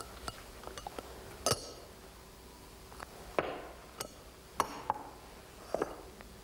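Metal cups-and-balls cups clinking against one another as a nested stack is pulled apart and the cups are set down on a cloth-covered table. The result is a string of sharp, irregular clinks and taps.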